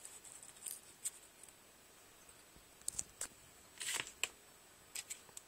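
Stiff paper cutouts being handled and shifted by hand: scattered short rustles and clicks, the loudest cluster about four seconds in.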